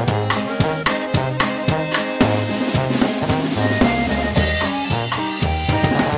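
Acoustic drum kit playing a basic norteño beat, with snare and hi-hat strikes, along to a recorded norteño song that carries a bass line and sustained melody notes.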